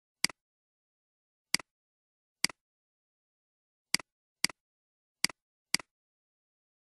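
Computer mouse clicking: seven sharp clicks at uneven intervals, each a press followed quickly by a softer release, with dead silence between them.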